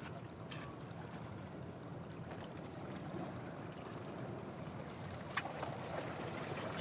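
Steady wash of sea water and wind along the shore, with a faint click about half a second in and another near the end.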